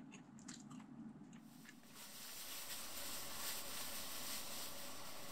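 A few faint clicks and crunches of someone eating, then from about two seconds in a steady soft hiss.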